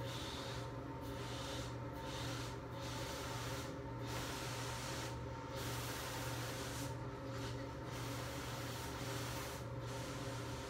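Sponge scrubbing the shower wall in repeated strokes, a rubbing hiss that comes and goes every half second or so, over a steady low hum.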